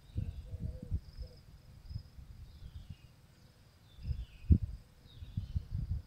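Gusty wind rumbling on the microphone over a faint, steady distant tornado siren tone, barely audible because the rotating siren faces away. A few short falling bird chirps and a thin high insect buzz sit behind it.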